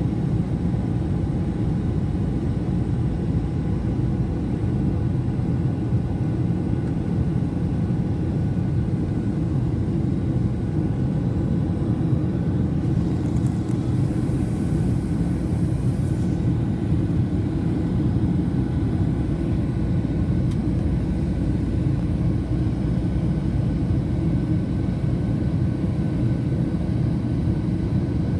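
Steady low rumble of a jet airliner in flight, heard from a window seat inside the cabin: engine and airflow noise with a faint steady whine. A soft hiss comes in about 13 seconds in and lasts about three seconds.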